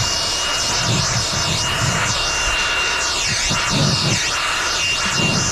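Power drill driving a hole saw through a thick fiberglass boat deck: a steady motor whine over loud grinding, which cuts off suddenly at the end.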